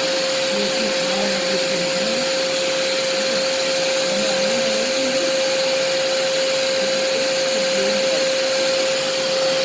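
1600 W wet & dry vacuum cleaner motor running steadily in blower mode, air blowing out through the hose, with a steady high whine over the rush of air.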